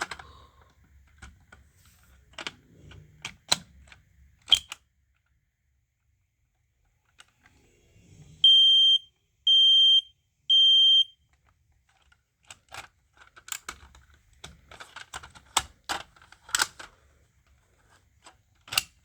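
Kidde i9070 smoke alarm sounding three loud, high beeps of about half a second each, evenly spaced: one cycle of the temporal-three alarm pattern, set off to test it. Clicks and knocks come before and after the beeps.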